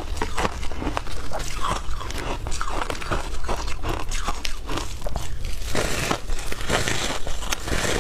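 Crunching of a block of frozen shaved ice: gloved hands break a chunk off the icy slab and teeth bite into the frozen pieces, a dense run of crisp crackles and crunches. The crunching is louder and denser for a couple of seconds near the end.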